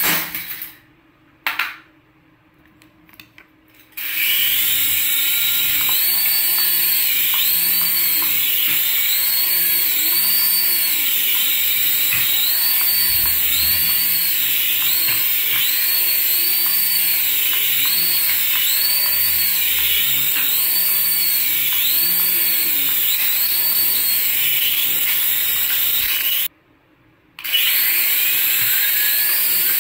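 Small electric motors and coaxial twin rotors of toy RC helicopters whirring with a high whine, the pitch rising and falling in a steady repeating swell as they hover and fly. The sound drops out abruptly twice: for about three seconds near the start and for under a second near the end.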